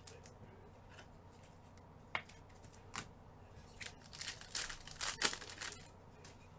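A trading card pack's wrapper being handled and torn open by hand. Two sharp clicks come first, then a run of crinkling and tearing about four to six seconds in.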